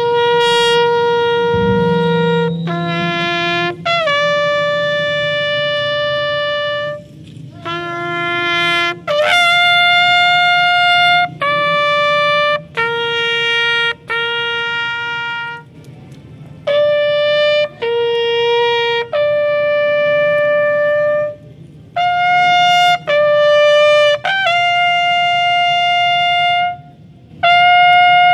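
A solo military bugle call: a slow series of long held notes, each lasting one to two seconds, separated by short breaks.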